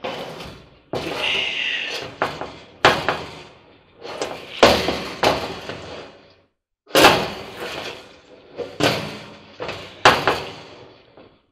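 Irregular metal knocks, clanks and scrapes of a nut driver and parts against a clothes dryer's sheet-metal cabinet and drum, as a screw is worked into line by hand, with a brief high squeal about a second in.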